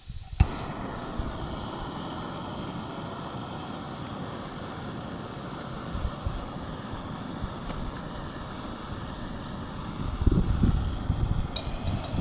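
Strong wind gusting against a tent at night, with a steady low rumble of wind on the microphone. A heavier gust swells about ten seconds in, and a run of sharp ticks comes near the end.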